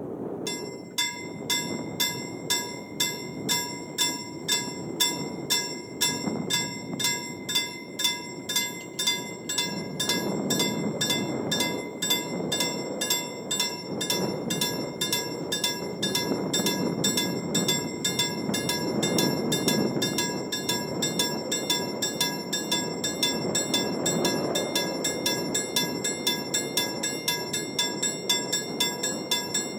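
Level-crossing warning bell ringing from about half a second in: a bright strike repeated evenly, about twice a second, warning that a train is approaching. A low, wavering noise runs underneath.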